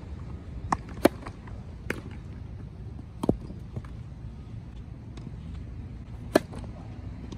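Tennis ball and racket sounds: a few sharp knocks in the first seconds, then a loud pop of a racket striking a serve near the end, over a steady low outdoor rumble.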